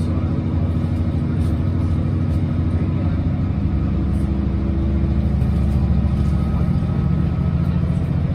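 Class 165 diesel multiple unit's underfloor diesel engine working hard as the train accelerates away from a station, heard from inside the carriage as a steady low drone that grows slightly louder about halfway through.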